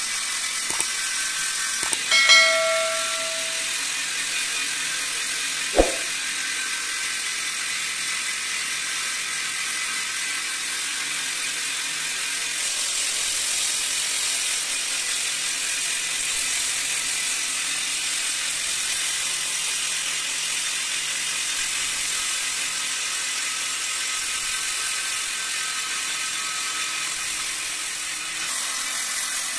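Corded electric drill boring holes into the ends of stone baluster blanks, its motor whining steadily. A few sharp clicks and a short chime sound in the first few seconds.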